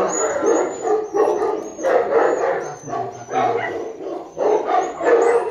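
A dog barking and yelping over and over in quick bursts.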